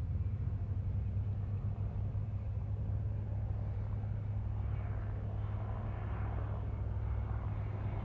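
Low, steady rumble of a formation of military helicopters flying past, with higher engine noise swelling up about five seconds in.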